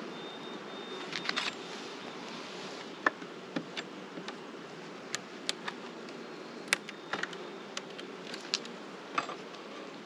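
Honeybees buzzing around an open hive, a steady low hum, with a scattering of short sharp clicks and taps throughout.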